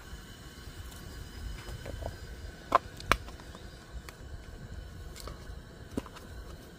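A plastic lid and collapsible silicone food container being handled: two sharp clicks a little under half a second apart about three seconds in, and a fainter click near the end.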